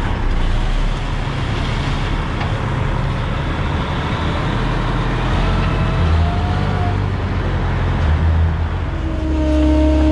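Dump truck's engine running steadily with a deep hum, a faint whine rising in pitch around the middle. About a second before the end it gets louder, with a strong steady tone.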